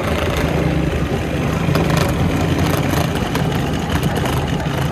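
Electric motor of a kitchen appliance running steadily with a low hum, the appliance being used for the gyro meat.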